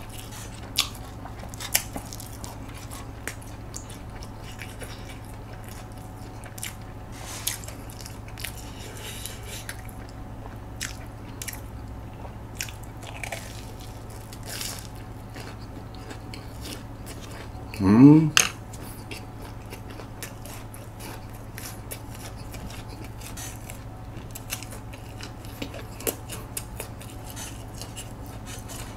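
Close chewing and biting of a crisp, sugar-coated fried corn dog, with scattered sharp crunching clicks. A brief voice sound rising in pitch about eighteen seconds in, over a steady low hum.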